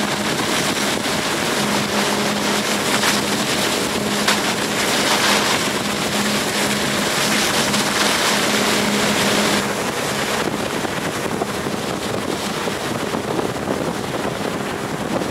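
Tow boat's engine running steadily at speed under a loud rushing hiss of spray thrown up by a barefoot water skier's feet, with wind buffeting the microphone. The engine's steady note drops out about ten seconds in while the spray noise carries on.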